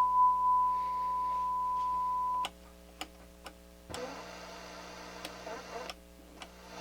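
A steady high test tone plays through the Pioneer SX-626 receiver and cuts off with a click about two and a half seconds in. Several sharp clicks of the receiver's switches follow, with a couple of seconds of hiss and hum from the amplifier in between.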